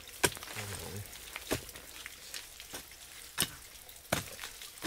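Four sharp knocks spread unevenly over a few seconds, with a brief voice less than a second in.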